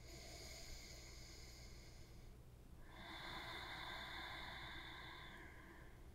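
A person breathing slowly and audibly: two long, faint breaths of about two and a half seconds each, separated by a short pause.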